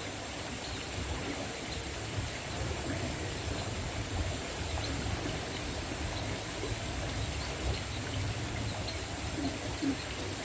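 Outdoor insect chorus: a steady, high-pitched drone that holds unbroken throughout, with a low rumble underneath.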